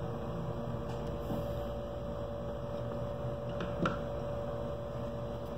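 Steady electrical mains hum, with one brief faint tick a little before four seconds in.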